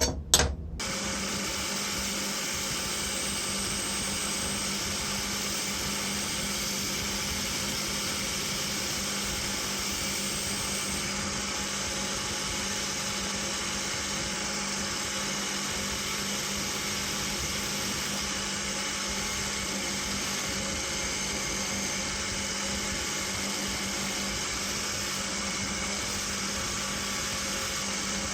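Small electric power tool running steadily without pause, its motor giving a constant whine over an even whirring noise.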